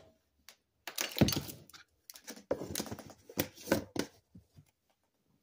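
A measuring spoon knocking, clicking and scraping as it scoops bouillon powder from a jar and taps against the jar and pot: a string of separate sharp knocks, the loudest about a second in.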